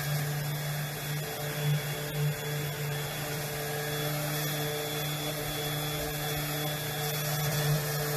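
Electric power sander running steadily on a wooden bench, a constant motor hum with the hiss of sanding over it.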